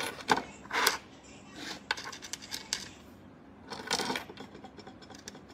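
Scattered light clicks and taps, with a few short louder noises near the start and about four seconds in.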